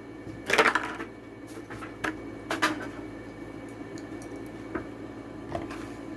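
Toy-car blister packaging being handled: a short crinkling rustle about half a second in, then a few scattered light clicks and taps.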